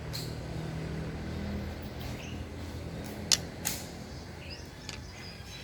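Gunshots at a shooting range: sharp, short reports, the loudest two about a third of a second apart in the middle, with fainter shots near the start and shortly after. A steady low hum runs underneath.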